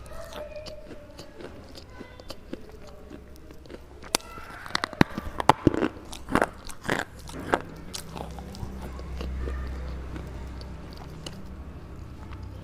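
Red slate being bitten and chewed close to the microphone: dry, gritty crunches, with a cluster of sharp bites about four to seven and a half seconds in, then quieter chewing.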